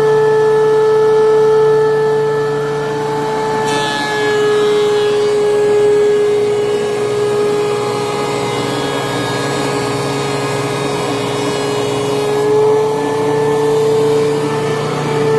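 DeWalt 735 thickness planer running with a dust collector, a steady high whine over a lower hum. About four seconds in a maple board feeds into the cutterhead: the whine drops a little under load and a rough cutting noise joins it, until near the end the board clears and the whine climbs back.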